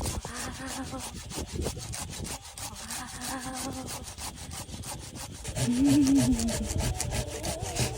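Saw cutting wood in quick, even rasping strokes, with a wavering pitched tone over it now and then that grows louder about six seconds in.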